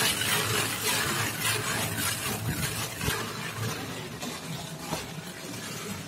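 Plastic float rubbing stone-grain silicate-silicone decorative plaster on a wall: gritty scraping strokes that grow fainter.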